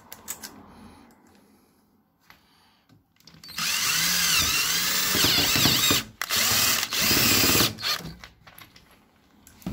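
Power drill driving a self-drilling countersunk screw into a mosquito-screen frame profile, running in two bursts from about three and a half seconds in to near eight seconds with a short break between them; its whine rises and falls in pitch. Light handling clicks come before and after.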